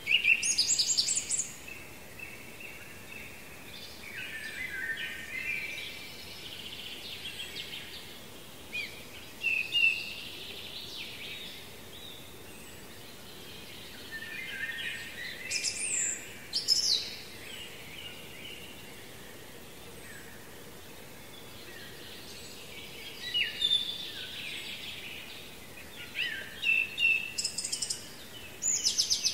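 Songbirds singing in short, repeated phrases with high, thin notes, coming and going several times over a steady faint background hiss.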